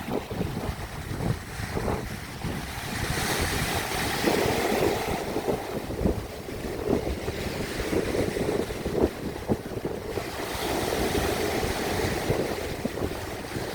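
Sea waves washing on the shore as a steady hiss that swells twice, with wind buffeting the microphone in low rumbling gusts.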